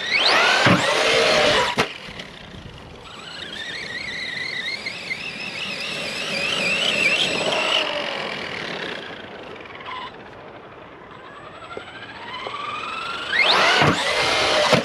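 Arrma Big Rock V3 RC monster truck's electric motor whining as it is driven, with a sharply rising whine and a loud close pass near the start and again near the end. In between, a fainter wavering whine rises and falls as the throttle changes.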